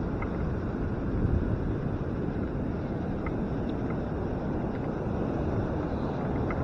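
Wind buffeting the microphone of a handlebar-mounted camera: a steady low rumbling rush with no break.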